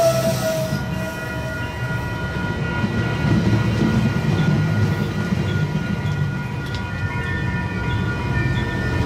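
Metrolink passenger train's bilevel coaches rolling past, a steady low rumble with faint steady whining tones above it.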